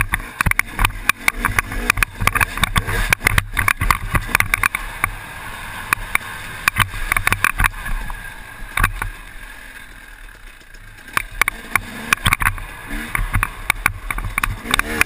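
KTM 250 EXC two-stroke dirt bike engine revving and easing off while riding rough off-road terrain, heard muffled through a helmet camera housing. Frequent knocks and rattles come from bumps. The engine falls quieter about two thirds of the way through, then revs rise and fall again near the end.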